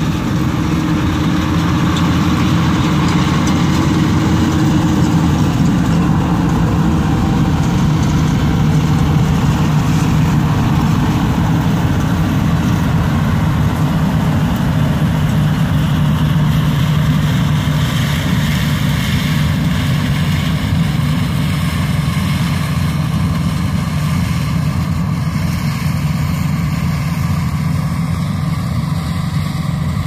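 Massey Ferguson 860 combine harvester running steadily as it harvests soybeans: its diesel engine and machinery make a loud, continuous drone.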